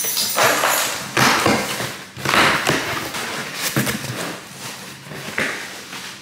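Cardboard shipping box being handled and opened by hand: a run of short scraping, rustling noises with a few thumps as the flaps are pulled open, thinning out near the end.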